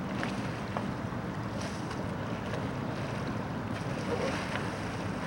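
Steady wind rumbling on the microphone over the wash of waves.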